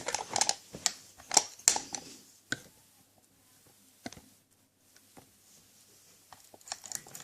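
Light metallic clicks and taps of a tension wrench and lock pick against a Yale knob cylinder, set into the keyway to start picking. The clicks come thickly in the first two seconds, then thin out to a few faint ticks.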